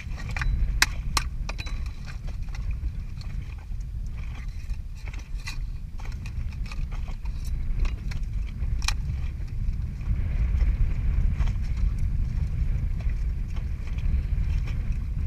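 A knife cracking and prying open razorfish shells: scattered sharp clicks and knocks of blade on shell, over a steady low rumble.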